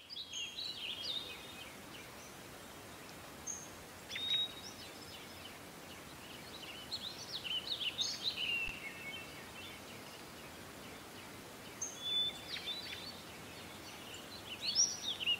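Small birds chirping and twittering in scattered short bursts over a faint steady hiss.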